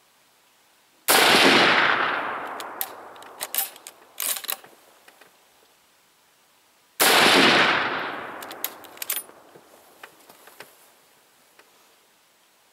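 Two shots from a Mosin-Nagant 91/30 bolt-action rifle firing 7.62x54R, about six seconds apart, each with a long echoing tail followed by a few sharp clicks.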